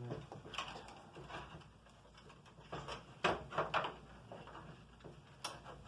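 Scattered clicks and knocks of computer case parts and fans being handled and fitted, with the loudest cluster of sharp clicks about three seconds in.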